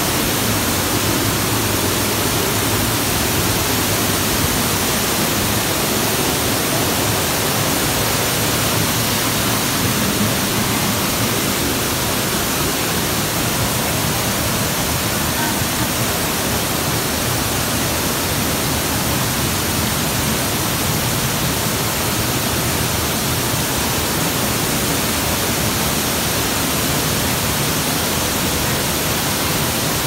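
Dry Falls waterfall rushing steadily, heard up close from behind its falling curtain of water.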